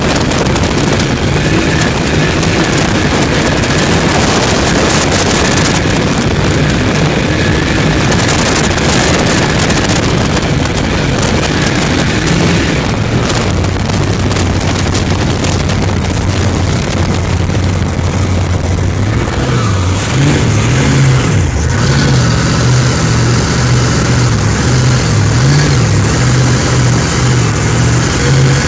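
Supercharged V-drive boat engine running hard under way, heard from on board over the rush of wake and spray. Its steady low drone begins to waver up and down in pitch about two-thirds of the way through.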